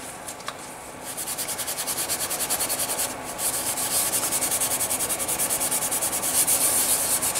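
Green Scotch-Brite pad scrubbed rapidly back and forth across a Kohler KT17 piston crown, scouring off carbon deposits. The quick, even strokes start about a second in and pause briefly near three seconds in.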